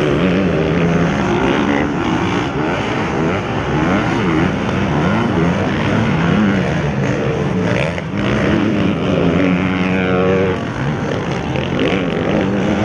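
Motocross bikes racing, their engines revving up and falling back again and again as they take the track. Several engine notes rise and fall over one another.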